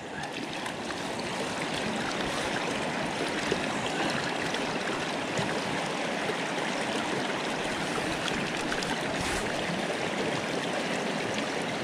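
Fast river water rushing steadily over and between rocks.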